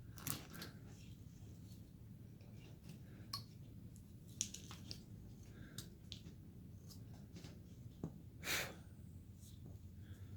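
Hand carving tool cutting and scraping basswood: faint scattered clicks and short scrapes as small chips are dug out, with one longer, louder stroke about eight and a half seconds in.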